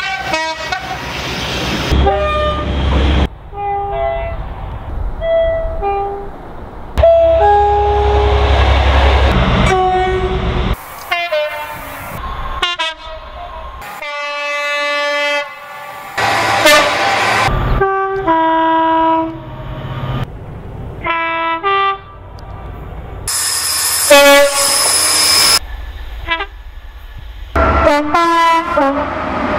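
A string of different UK diesel locomotive horns, cut one after another, mostly two-tone horns sounding alternating high and low notes. A heavy diesel engine rumbles loudly under one of the horn blasts about a third of the way in.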